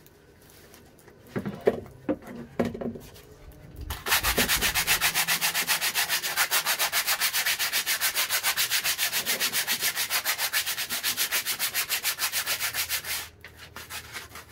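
A few knocks of metal being handled, then rapid, even back-and-forth rasping as the steel bench vice is scrubbed by hand, starting about four seconds in and stopping sharply near the end.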